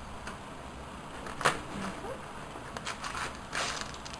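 A cardboard candy box being opened by hand, with a sharp tick about a second and a half in, then the plastic pack inside rustling and crinkling as it is pulled out.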